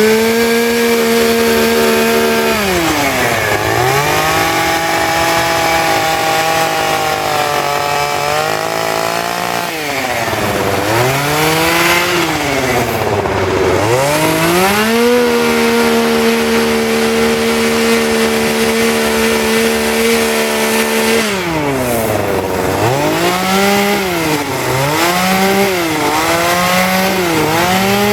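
Two-stroke chainsaw carving wood: the engine runs at high revs, drops to a lower steady pitch for several seconds as it bites into the wood, climbs back, and in the last few seconds is revved up and down in quick repeated blips.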